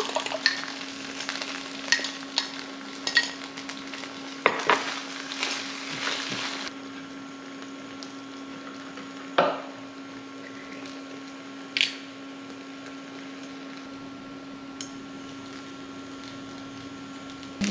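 Rice and egg frying in a pan, stirred and scraped with a wooden spatula: sizzling with quick clicks and scrapes for the first six seconds or so, then a quieter stretch with a couple of single knocks over a steady hum.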